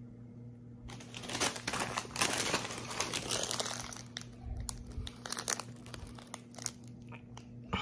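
Crinkling of a sealed Walkers Monster Munch crisp packet being handled and waved about. The crackling is dense from about a second in until about four seconds, then turns into scattered crinkles.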